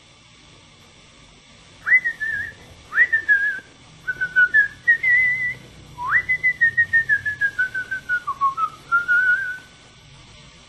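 A person whistling a short tune: four phrases, each opening with a quick upward swoop and then wandering down, with a fast wavering vibrato, starting about two seconds in and stopping near the end.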